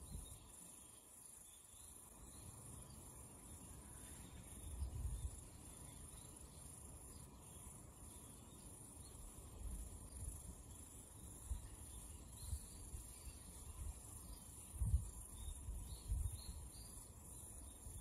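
Wind buffeting the microphone in low gusts, the strongest about five, ten and fifteen seconds in, over a faint steady high-pitched insect chorus.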